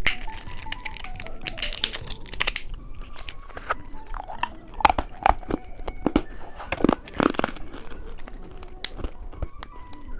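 A plastic candy wrapper crinkling and tearing, then sharp bites and crunching as a hard-candy lollipop is eaten.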